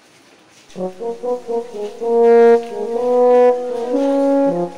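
A horn-like melody with a brass sound: a run of short notes about a second in, then longer held notes that step up and down in pitch.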